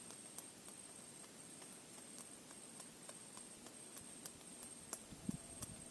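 Faint ambient noise with scattered sharp clicks and a thin, high, steady tone that breaks off now and then; a soft low knock comes near the end.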